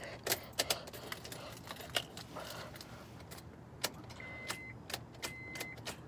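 Car keys jangling and clicking as the ignition is tried, with no cranking: a no-start that the owner takes for a dead starter. From about four seconds in there are three short, even electronic beeps about a second apart.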